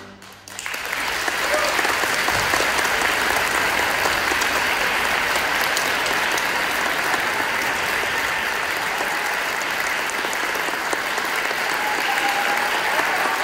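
The string orchestra's last chord dies away and audience applause breaks out about half a second in, continuing steadily.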